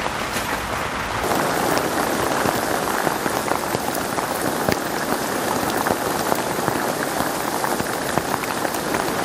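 Heavy downpour: a steady rain hiss with a dense patter of drops, getting louder about a second in.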